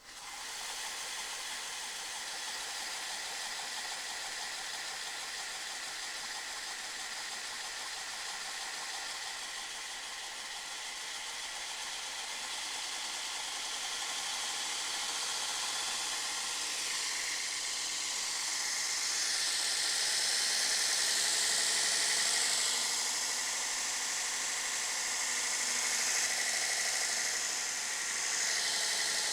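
BuckTool 4x36 variable-speed belt grinder powered on for the first time and running smoothly, a steady whirring hiss of motor and belt that grows louder from about halfway through.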